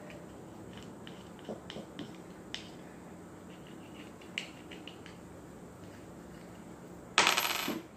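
A coin scraping at the scratch-off coating of a fingerboard deck: light, scattered scrapes and ticks. Near the end, a loud short rush of noise lasting about half a second.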